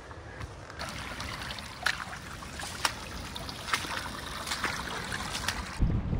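Water trickling over a rock slab, with scattered sharp snaps and crackles of footsteps on the trail. Near the end the sound cuts to wind buffeting the microphone and a canoe paddle stroking the water.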